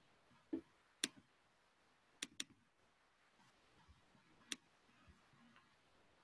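Faint, sharp computer clicks at the pointing device while dragging and placing an element on screen: a single click, a quick double click about a second later, then another single click. A duller knock comes just before the first click.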